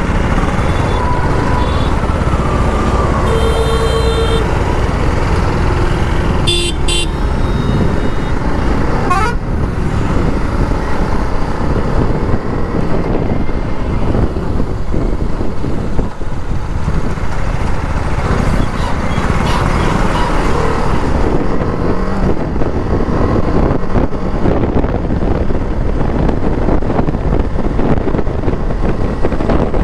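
On-board sound of a TVS Apache RR 310's single-cylinder engine running at road speed, under a steady rush of wind. A vehicle horn sounds briefly about three seconds in and again a few seconds later.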